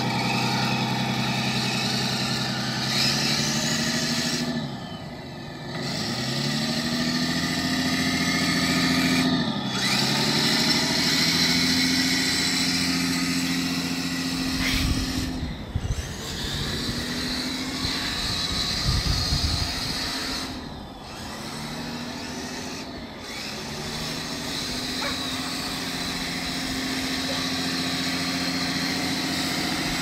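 Kyosho Blizzard SR radio-controlled snowcat's electric drive motors and gearboxes whining, the pitch rising as it speeds up and falling as it slows, over and over. A low rumble joins in for a few seconds about halfway through.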